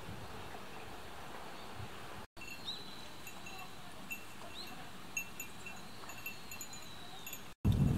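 A train's low running noise from the cab for about two seconds. After a sudden cut, quiet outdoor ambience with a faint high whistle that slowly falls in pitch and short high chirps repeating every half second or so.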